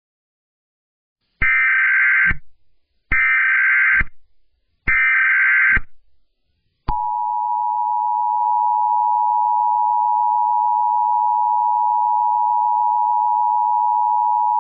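Emergency Alert System signal: three short buzzing SAME digital header bursts, each about a second long. About seven seconds in, a loud, steady EAS attention tone starts and holds without a break.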